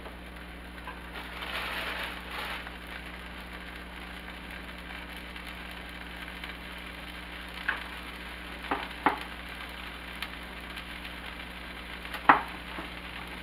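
Butter sizzling in a hot frying pan under sub buns toasting face-down: a steady frying hiss that swells briefly near the start. A few sharp clicks later on, the loudest near the end.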